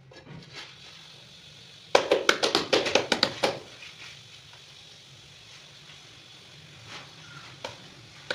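A rapid run of sharp taps on a large ceramic wall tile, about a dozen in a second and a half starting about two seconds in, as the tile is set into its adhesive. A couple of faint knocks follow later.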